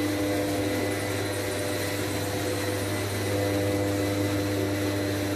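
Steady mechanical drone of a machine running, a constant low hum with several unchanging tones above it.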